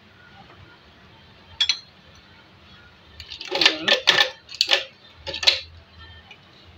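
Ice cubes dropped into a blender jar, clattering and clinking against it in several quick groups over about two seconds in the second half, after a single click.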